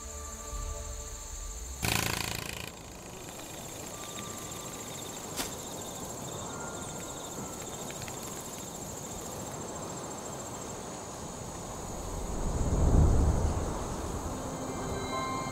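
Forest ambience of insects trilling, with one steady high cricket-like trill. A short rush of noise comes about two seconds in, and a deep swell builds and fades near the end.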